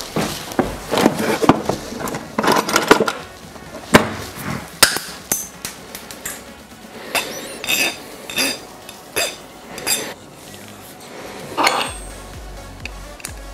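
Metal hand tools clattering and clinking together and knocking on a hard surface, a quick run of sharp knocks and clinks, a few of them ringing briefly. Background music comes in near the end.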